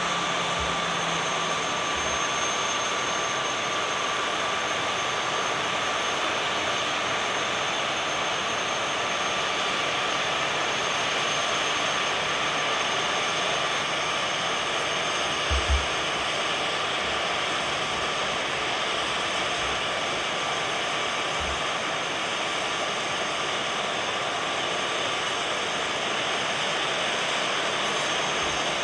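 Jet engines of a Transavia Boeing 737 on final approach: a steady rushing hum with a thin, steady high whine. A few soft low thumps, the strongest about halfway through.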